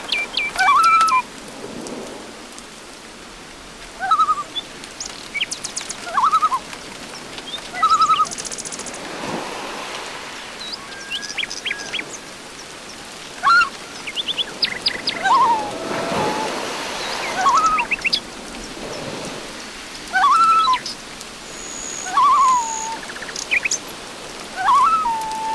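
Several birds calling and chirping: a short warbled call phrase repeated every two seconds or so, with higher quick chirps and trills between, over a steady background hiss.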